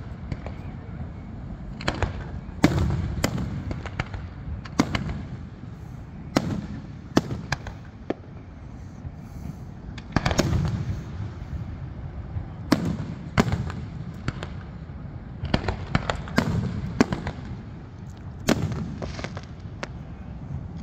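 Fireworks display: shells bursting in an irregular series of sharp bangs every second or two, each followed by a rolling rumble, with some bangs coming in quick clusters.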